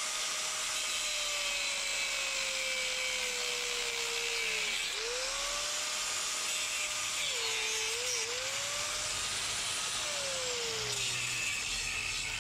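Electric angle grinder grinding off the damaged threaded stud of a motorcycle's rear shock absorber mount. The motor's whine sags in pitch several times as the disc bears into the steel, over a steady grinding hiss.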